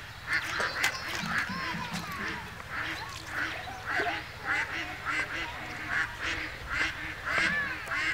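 Ducks quacking in a steady run of short, rough calls, two or three a second.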